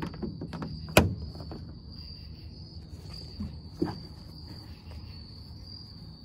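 Crickets chirping in a steady high trill. About a second in comes a sharp click, and near four seconds a softer knock, as a compartment lid and latch on the pickup are handled and wiped with a rag.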